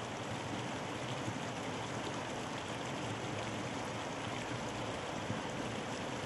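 Shallow stream rushing steadily over rock ledges and small cascades: an even splashing rush of water with no breaks.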